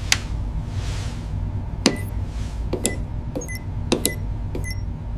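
Sci-fi lab sound design: a steady low electronic hum with irregular sharp clicks, several carrying short high electronic beeps, and two soft whooshes in the first half.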